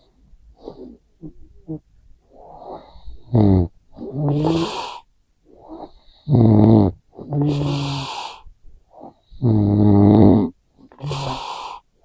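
A person snoring loudly: three low snores about three seconds apart, each followed by a hissing breath, with small snuffles and snorts in the first few seconds.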